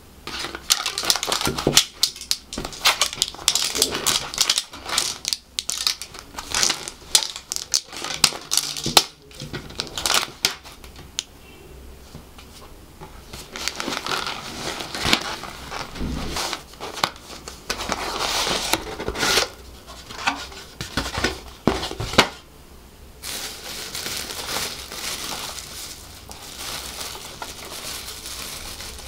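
Printed paper wrapping torn and pulled off a cardboard takeaway food box in a long run of sharp, irregular rustles. For the last few seconds a thin plastic food bag inside the box rustles more softly and steadily as it is pulled open.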